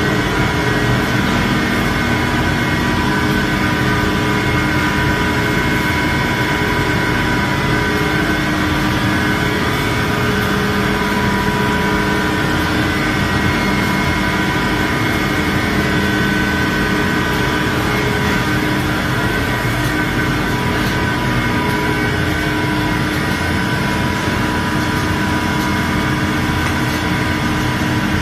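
Wide-belt sanding machine running steadily as stainless steel fence panels are fed through on its conveyor: a constant machine drone with several held whining tones.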